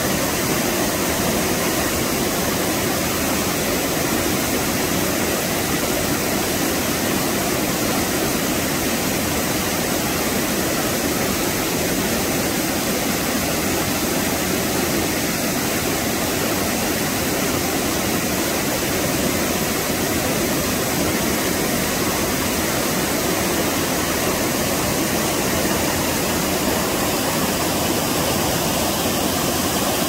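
Mountain stream rushing and splashing over boulders in small whitewater cascades, a steady unbroken rush of water.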